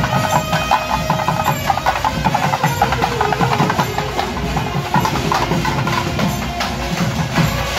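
Tamate frame drums beaten fast with sticks in a loud, rapid, cracking rhythm.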